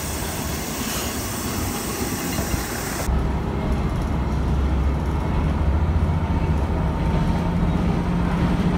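Noto Railway diesel railcar arriving at a station platform; then, after an abrupt cut about three seconds in, heard from inside the cabin: the diesel engine's low hum with a tone that slowly rises as the railcar gathers speed.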